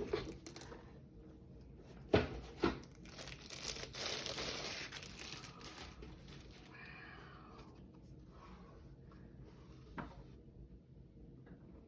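Packaging being handled during an unboxing: crinkling and rustling, with two sharp knocks a little after two seconds and another click near ten seconds, fading toward the end.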